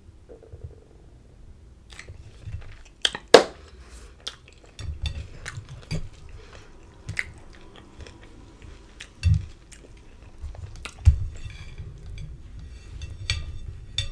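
Close-miked handling of a flour tortilla wrap being folded and rolled on a plate: scattered sharp clicks and taps, the loudest about three seconds in and another about eleven seconds in, with soft bumps and chewing.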